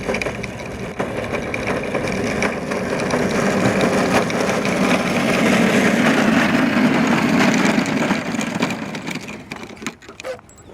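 Go-kart driving, growing louder for about six seconds and then fading away near the end as it passes and moves off.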